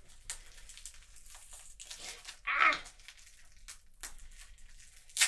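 Plastic bubble-wrap packaging crinkling as hands work at it, trying to tear it open. A short vocal sound comes about two and a half seconds in, and a sharp click near the end.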